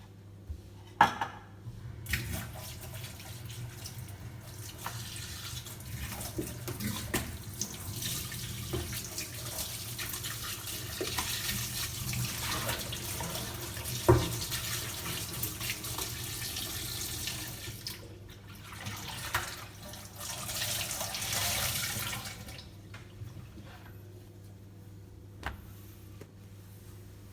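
Tap water running into a sink, with scattered clinks and knocks of dishes being handled. The water stops and starts again briefly near the end.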